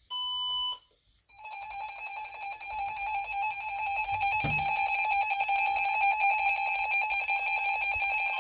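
Several NOAA weather alert radios sounding their alarms together for a tornado watch: a short beep near the start, then rapid overlapping electronic beeping from about a second in. A single knock about four and a half seconds in.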